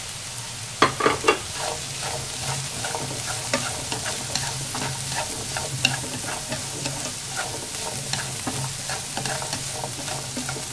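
Vegetables, sausage and dried shrimp sizzling in a non-stick frying pan as a wooden spatula stirs them, with steady light clicks and scrapes of the spatula against the pan. A few louder knocks come about a second in.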